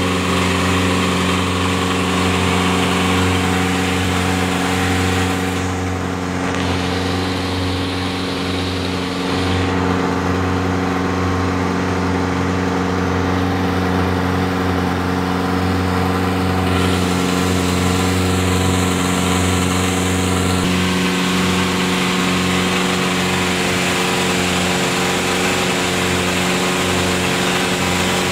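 Wooden boat's engine running steadily at cruising speed, with the rush of water along the hull.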